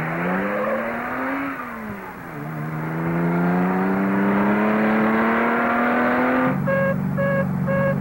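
Car engine accelerating hard, its pitch climbing, dropping at a gear change about two seconds in, then climbing steadily again. About six and a half seconds in it cuts off and is replaced by steady electronic beeping, about two to three beeps a second, over a low hum.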